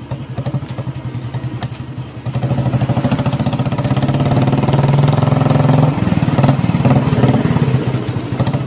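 Several motorcycle and scooter engines running as the bikes ride up close on a dirt track. The engine sound grows louder from about two seconds in, is loudest a little past the middle, then eases slightly as the lead motorcycle goes by; throughout it has a low, even pulsing beat.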